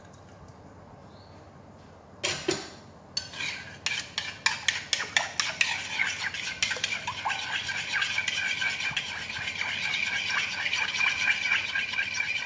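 A metal utensil whisking eggs, milk and oil in a glass bowl. A short noise comes about two seconds in, then quick clinks against the glass that speed up into a steady, rapid rattle.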